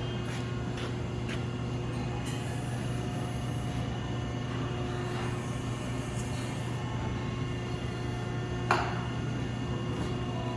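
Steady hum of the hydraulic drive turning a pipe wrench rig as it unscrews a seized hydraulic cylinder gland, the gland coming off easily. A single sharp knock sounds late on.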